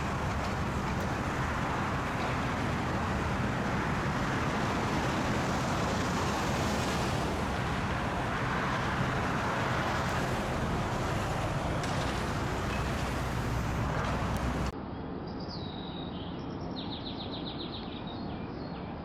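Steady road traffic noise. About three-quarters of the way through it cuts abruptly to quieter outdoor ambience with birds chirping several times.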